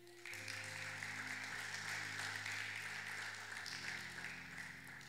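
Audience applauding steadily, with a keyboard holding soft low chords underneath that change a moment after it starts and again near the end.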